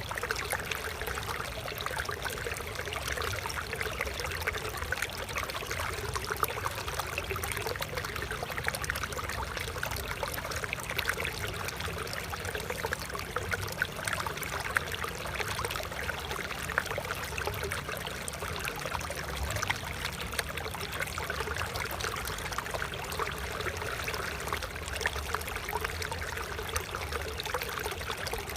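Water flowing and trickling steadily in a small stream, a constant splashing babble.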